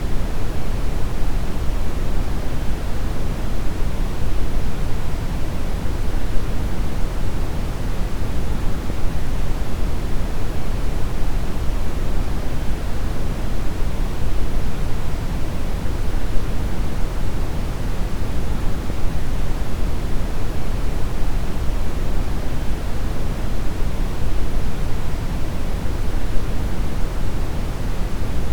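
Deep brown noise: a steady, even rumbling hiss weighted heavily to the low end, unchanging throughout.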